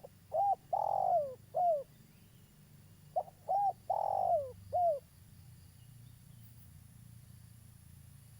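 Spotted dove cooing: two phrases, about three seconds apart. Each is a short note, another short coo, a long drawn-out coo and a final falling note.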